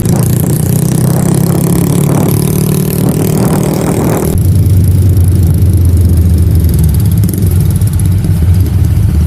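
Motorcycle engine running under way on the road, with a steady hiss over it; about four seconds in the engine note changes and settles lower.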